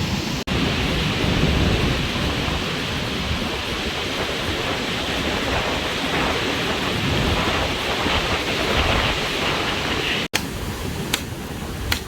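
Strong wind buffeting the microphone, a dense, heavy rumble and hiss. It cuts out briefly near the end, and a quieter haze with a couple of sharp knocks follows.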